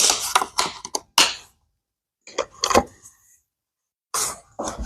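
Hard plastic clicks and knocks as the battery compartment's lid and latch on a battery-powered pressure washer are worked. There is a cluster of clicks in the first second and a half, a few more near three seconds, and a brief rustle near the end.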